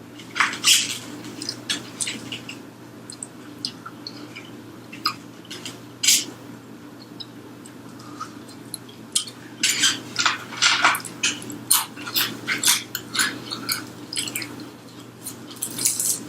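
Close-up eating sounds of crispy fried chicken wings being bitten and chewed: irregular sharp crunches and crackles, thickest in a run around the middle, over a steady low hum.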